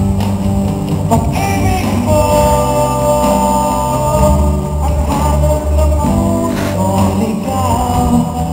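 A man singing live into a handheld microphone over amplified backing music, with long held notes.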